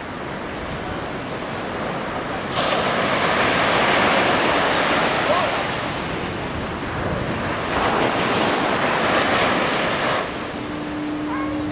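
Heavy storm surf crashing and rushing, with wind, in two loud spells about three seconds in and again about eight seconds in. A steady low tone comes in near the end.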